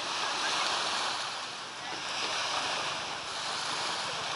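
Small sea waves washing onto a pebbly beach: an even rush of surf that dips briefly and swells again.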